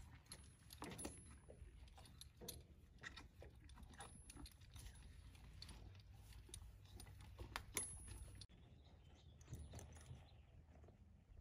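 Faint jingling and clicking of metal bridle hardware as a bridle is fitted on a saddled horse's head, then, after a sudden change in the sound, a soft rustle as a rider mounts.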